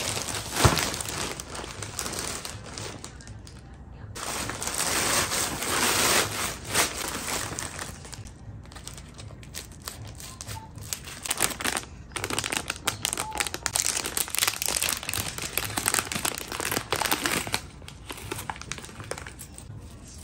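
Packaging being handled and crinkled: irregular rustling and crackling with many small clicks, coming in louder stretches and easing off between them, with one sharp click about a second in.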